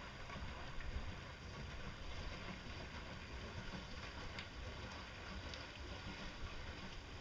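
Low, uneven wind rumble on the microphone, with a few faint ticks.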